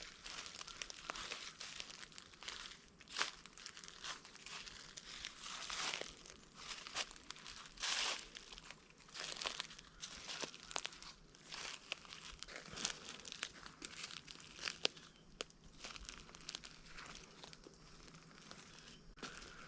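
Footsteps crunching through dry dead leaves and ground cover: an uneven run of crisp crackling crunches, a few of them louder.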